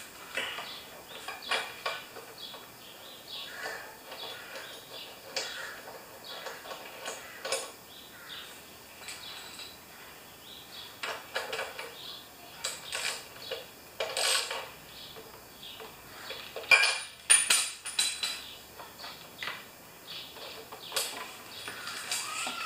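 Irregular metallic clicks and clinks of a ratchet and socket as a spark plug is threaded in and tightened on a lawn mower's Honda engine, with a denser cluster of clicks a little past the middle.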